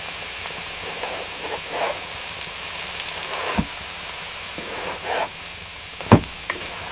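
Blizzard ambience: a steady hiss of wind-driven snow with scattered crackling, broken by two sudden low thumps, one midway and a louder one near the end.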